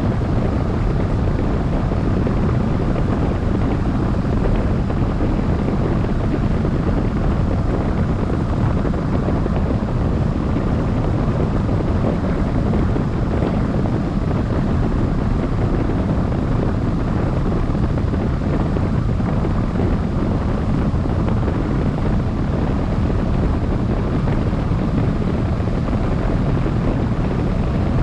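Steady rush of wind over a camera mounted on a hang glider's wing in flight: a continuous low noise with no breaks.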